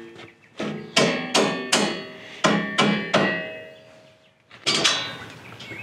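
Mallet striking the steel brush guard on the tractor front, each blow with a short metallic ring: two quick sets of three strikes, then one more near the end.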